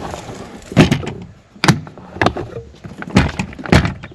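A newly fitted Go Fast Camper latch lock being tried out: about five sharp clicks and clunks as the lock and latch are worked and the panel knocks against the frame.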